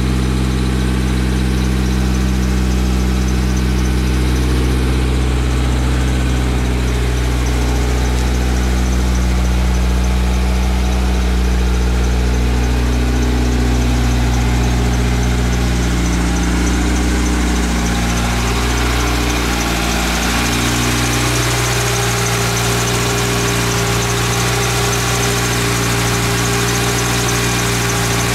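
Mitsubishi Eclipse GSX's turbocharged four-cylinder engine idling steadily. The idle wavers briefly about two-thirds of the way through, then settles.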